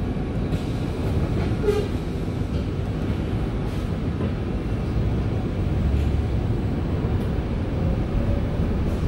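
Steady low rumble inside the cabin of a Volvo B5LH hybrid double-decker bus, with a few faint ticks and rattles, as it waits at traffic lights. It grows a little louder about six seconds in as the bus pulls away.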